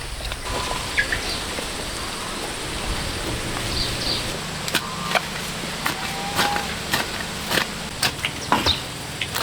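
Outdoor ambience: a steady hiss with scattered sharp clicks and knocks and a few brief high chirps.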